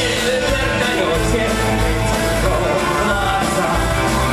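Symphonic rock played live: a symphony orchestra with electric guitar over a steady rock beat and bass, in a cover of a Russian rock song.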